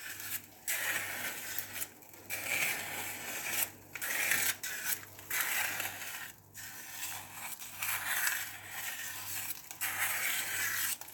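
Hand-cranked stainless steel food mill pressing cooked potatoes through its perforated disc: the blade scrapes and grinds against the plate in a string of strokes, one turn of the crank after another with short breaks between them.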